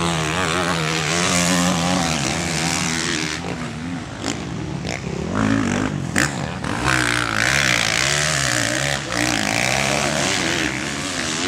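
450cc four-stroke motocross bikes racing on the track, engines revving up and down as the riders work the throttle, more than one engine heard at once at times. A couple of sharp cracks cut through a few seconds in.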